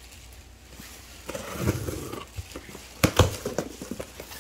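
A package being handled and opened: rustling a little over a second in, then two sharp knocks or clicks about three seconds in, followed by a few lighter ones.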